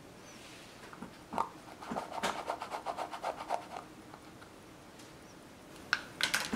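Small plastic tub of O-ring sealing grease being handled: light clicks and taps of the plastic. There is a single tap about a second in, a run of quick small clicks from about two to nearly four seconds in, and a few sharp ticks near the end.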